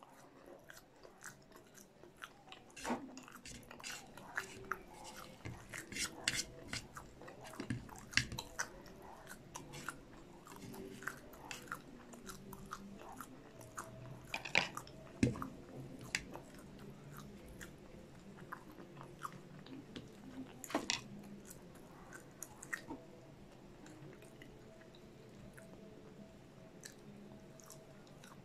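Close-miked chewing and biting of crispy fried food in cheese sauce: crunches and wet mouth clicks, thickest in the first half and thinning out later.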